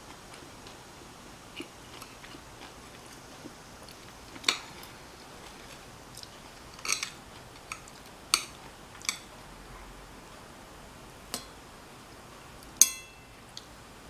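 Eating crispy Korean chive pancake: scattered sharp clicks of chopsticks against a plate and crunchy bites, with one louder clink that rings briefly near the end.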